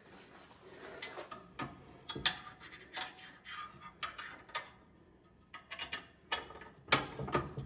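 Light metallic clicks and knocks at uneven intervals from handling and positioning a retractable air hose reel's adjustable arm, with the loudest clatter near the end.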